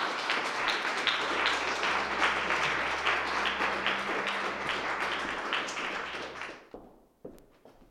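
Small audience applauding, the claps dying away about two-thirds of the way through, then a few light taps.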